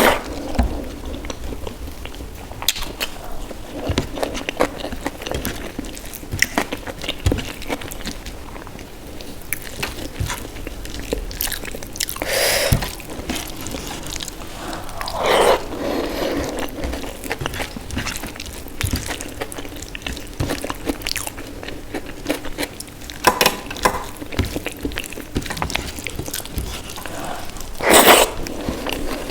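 Close-up eating sounds: steady chewing of a meal of dal with rice and mashed potato, broken by short clicks and a few louder crunchy bites.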